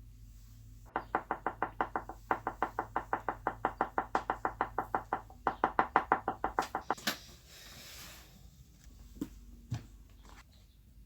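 Rapid, even knocking at about six strokes a second, in three runs with two short breaks, followed by a single sharp click.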